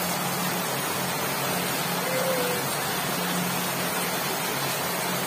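Steady rain falling on tarpaulin-covered and corrugated-sheet roofs, an even hiss.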